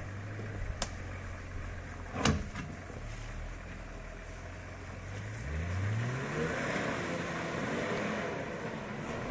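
Nissan Patrol K260 engine running low and steady, then revving up from about halfway through as the truck pulls away along the soft track. A brief sharp sound about two seconds in.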